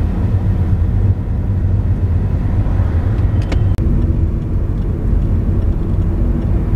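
Steady low rumble of a car's engine and tyres heard from inside the cabin while riding. It briefly cuts out just under four seconds in.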